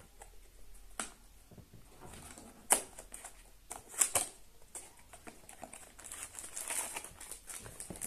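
Small cardboard box being opened and handled by hand: a few sharp clicks and taps, with paper and packaging rustling from about six seconds in.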